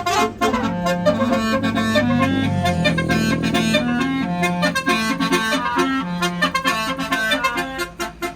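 Basuri multi-tone 'telolet' air horn on a tour bus playing a melody of short held notes, one after another, easing off near the end.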